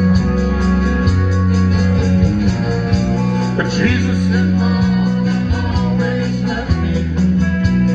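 Live country band playing an instrumental passage: electric and acoustic guitars over bass guitar and a steady drum beat, with a bent guitar note about four seconds in.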